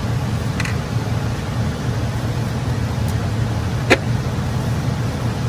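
Steady low hum of workshop machinery, with a few light clicks from parts being handled, the sharpest about four seconds in.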